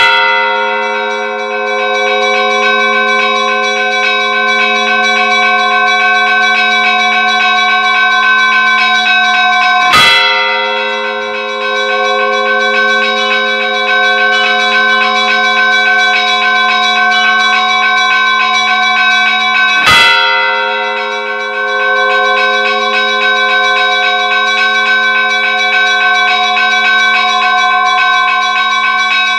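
Church bells ringing: several bell tones sounding together in a steady, layered chime, with a loud strike about every ten seconds.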